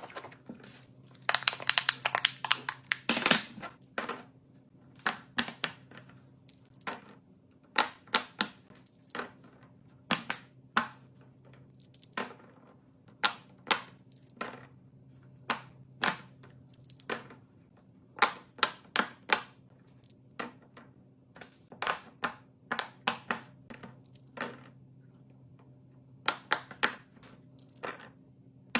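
Bubbles of a silicone pop-it fidget toy being pressed: a long run of sharp pops and clicks in irregular clusters, densest in the first few seconds, over a faint steady low hum.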